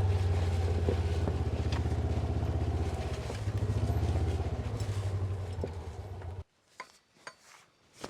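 A vehicle engine running steadily, cutting off abruptly about six seconds in, followed by a few light metal clinks.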